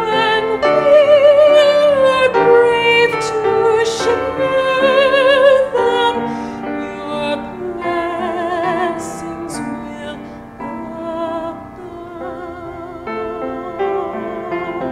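A woman singing a hymn solo in a trained voice with vibrato, to piano accompaniment; the singing is strongest in the first half.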